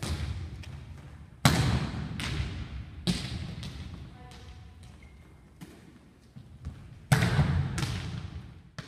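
A volleyball being hit back and forth in a large, echoing gym: a string of sharp smacks, each ringing on in the hall, the loudest about one and a half, three and seven seconds in.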